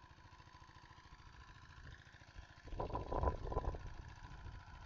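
Single-cylinder Jiangfa diesel engine of about 10 horsepower running steadily with an even low chugging, driving an irrigation water pump. A louder burst of noise comes about three seconds in and lasts about a second.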